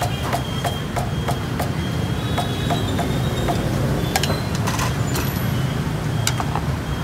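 Steady street-traffic rumble. Over it, a run of light knocks, about three a second in the first two seconds, then a few sharper clinks later, as the noodle strainer and wooden chopsticks knock against the steel stock pot while rice noodles are blanched and tipped into a bowl.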